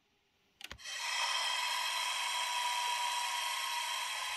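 ESU sound decoder in a Piko class 612 railcar model playing its train-brake-release sound through the model's small speaker: a couple of clicks about half a second in, then a steady hiss of escaping compressed air as the brake is released.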